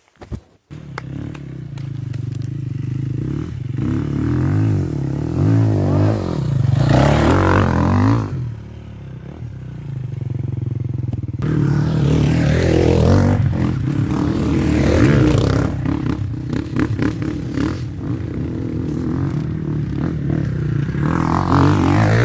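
Enduro motorcycle engines revving, the pitch rising and falling as the riders shift gears. The sound eases off for a couple of seconds around the middle, then builds again toward the end.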